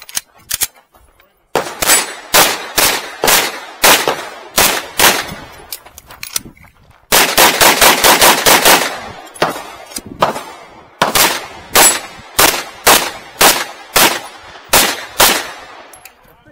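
Semi-automatic pistol fired rapidly close to the microphone. A string of shots comes at about two a second, then a pause of about two seconds, then a fast run of about ten shots, then more shots in quick succession until near the end.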